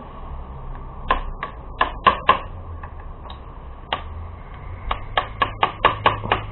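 A hammer lightly tapping a screwdriver handle used as a drift against a Suzuki LTZ 400's stuck starter motor, to work it loose. About fourteen short, sharp knocks come in uneven groups, coming quickest near the end.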